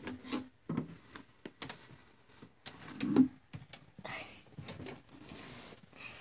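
Rummaging through clothes in a wooden dresser drawer: fabric rustling with scattered knocks and a louder thump about three seconds in, then close rustling and handling noise as the phone is moved.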